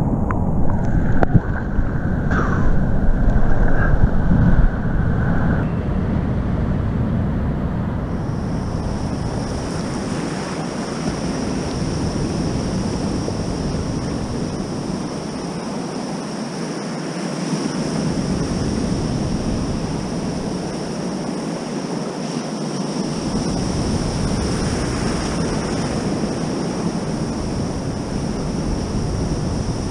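Ocean surf and foaming whitewater rushing around a camera at the water's surface, with wind buffeting the microphone. The water churns and sloshes loudest in the first few seconds, then settles into a steady wash of breaking waves.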